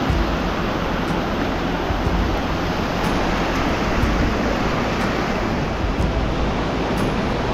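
Steady loud rush of an alpine mountain stream, heard close up at a ford.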